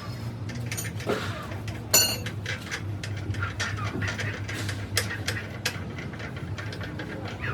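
Metal hand tools clinking and tapping during a tire repair, with one louder ringing metallic clink about two seconds in, over a steady low hum.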